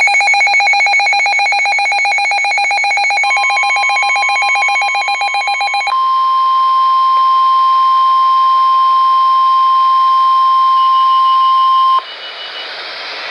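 A rapidly pulsing electronic alarm beep, then NOAA Weather Radio's steady 1050 Hz warning alarm tone, which takes over about six seconds in. The tone cuts off suddenly about twelve seconds in, leaving radio hiss.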